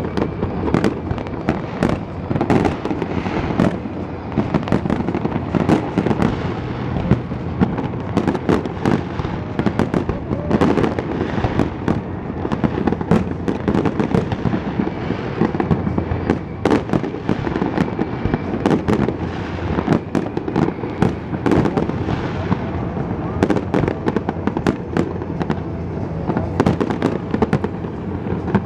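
Aerial fireworks display: many bangs and crackles in quick succession, several each second, overlapping into a continuous barrage.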